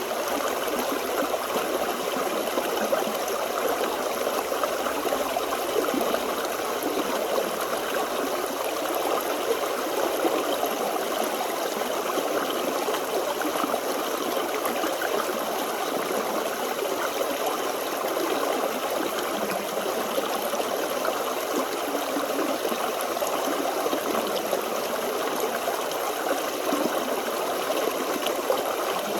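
Forest stream flowing and babbling over rocks, a steady rush of water without a break.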